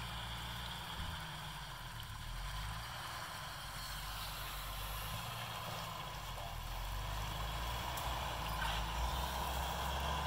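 Jeep Wrangler YJ's engine running steadily at low revs as it crawls up a rocky stream bed, growing slightly louder toward the end, with running stream water underneath.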